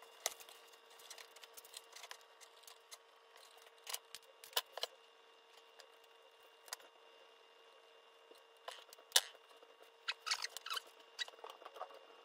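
Scattered light clicks and ticks from a bundle of thin insulated wires being gathered and sorted by hand. The sharpest click comes about nine seconds in.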